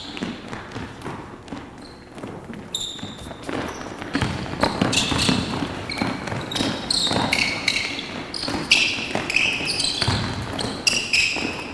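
Basketball being dribbled and passed on a hardwood gym floor, with sneakers squeaking in short high chirps as players cut and stop. The squeaks and bounces come thicker from about four seconds in.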